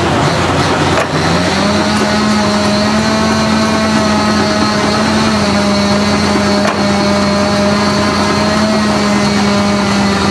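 An engine running steadily. Its pitch rises about a second in and then holds, with a sharp click or two.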